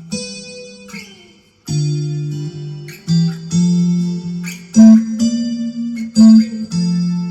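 Gear4Music LA Select Strat-style electric guitar strumming chords through a Zoom G1Four acoustic-guitar simulation patch, with a short pause about a second and a half in. Chords change every half second or so in the second half.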